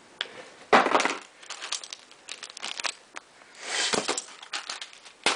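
Crinkling and rustling handling noises from unboxing, in a few short bursts, with a sharp knock near the end.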